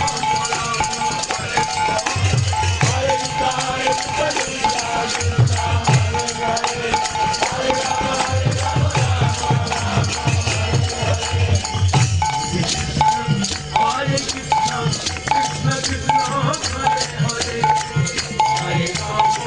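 Devotional kirtan music: small hand cymbals clash in a fast, steady rhythm over held tones, and a deep drum plays in runs of beats that come and go.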